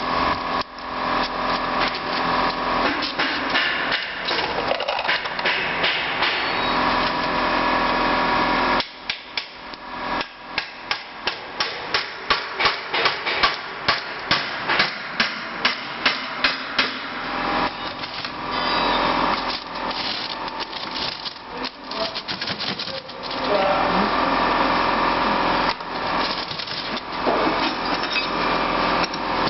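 Hammer blows on metal during the teardown of a Nissan manual gearbox: irregular sharp knocks, with a fast run of loud strikes through the middle, over a steady mechanical hum.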